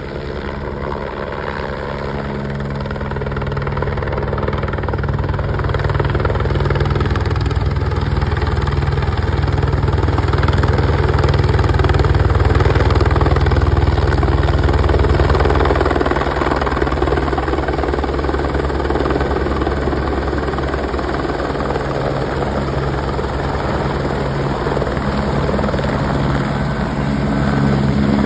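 Helicopter flying, its rotor beating steadily. It grows louder over the first half, eases off a little, then swells again near the end.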